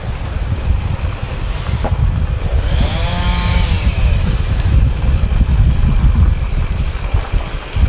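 Heavy wind buffeting the microphone, a loud, gusty low rumble. About three seconds in, a brief pitched whine rises and falls over it.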